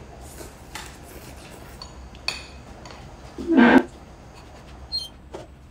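Spoons clinking and scraping against ceramic bowls as two people eat, with a few light clicks of tableware. About three and a half seconds in there is one short, loud vocal sound from one of the eaters.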